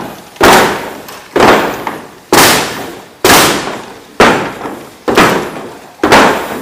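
Soldiers' boots stamping in unison on a wooden walkway in slow march step: seven heavy thuds about one a second, each with a short echoing tail.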